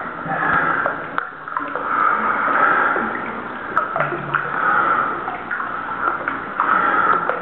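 Water sloshing and dripping as a caver moves through a flooded cave sump. Heavy breathing swells and fades about every two seconds, with small drip-like clicks in between.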